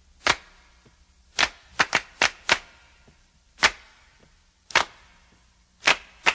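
About ten sharp claps in an uneven, syncopated rhythm with nothing else playing: the opening of a music track.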